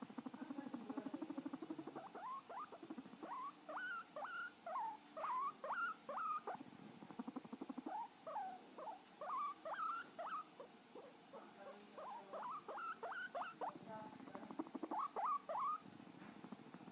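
Abyssinian guinea pig squeaking in runs of short calls that rise in pitch, broken by a low purring rumble at the start and again near the end.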